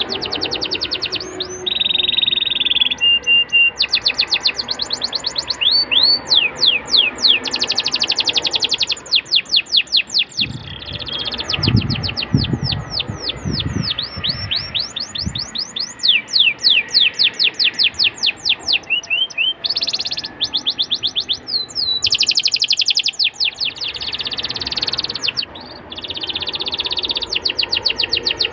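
Domestic canary singing continuously: long, fast rolls of repeated downward-sweeping notes, broken by buzzy trills and a short held whistle. A few low thuds come about halfway through.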